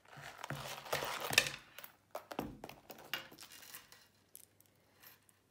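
Small gold-tone metal snap hooks and light chain clinking and rattling as they are unclipped and handled, with rustling of the bag's canvas and several sharp clicks; the handling dies away near the end.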